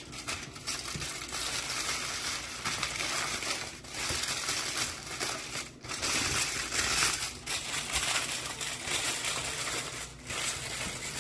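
Aluminium foil crinkling and crumpling as it is folded over and crimped closed into a packet, a steady crackle with a few brief pauses.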